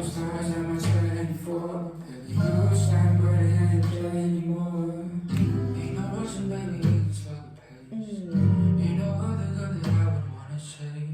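Recorded pop song playing: strummed acoustic guitar and singing over a deep bass line.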